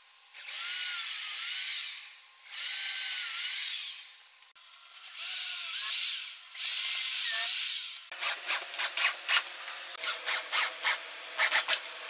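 Power drill driving screws into pine blocks: four runs of about two seconds each, the motor's whine dipping in pitch as each screw bites and draws the wood down. Near the end comes a quick run of short sharp strokes, about three a second.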